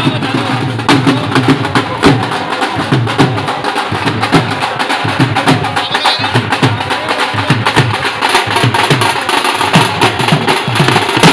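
Punjabi dhols beaten with sticks in a fast, driving bhangra rhythm, joined by white-headed side drums played with sticks; loud, dense and unbroken, with the deep dhol beats repeating at an even pace.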